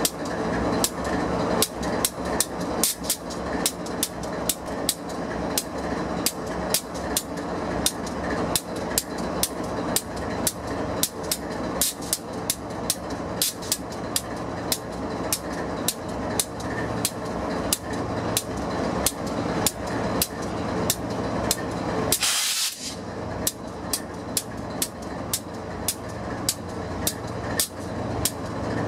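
GE diesel locomotive idling at close range: a steady engine hum with a sharp, regular clicking about two or three times a second. About two-thirds of the way through, compressed air hisses out in one short burst.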